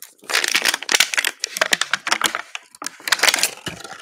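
Plastic crackling and crinkling as an LOL Surprise ball is pried apart by hand and its plastic wrapping torn, a dense run of rapid crackles.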